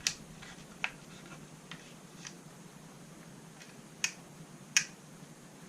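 Light handling clicks and taps of small parts: four sharper clicks, one at the start, one just under a second in, and two close together about four and five seconds in, with fainter ticks between.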